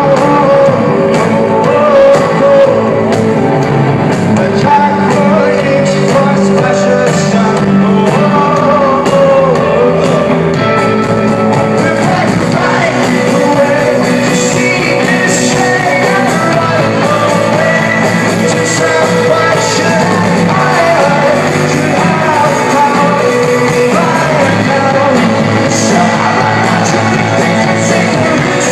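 Rock band playing live, with sung lead vocals over guitars, bass and drums with cymbals.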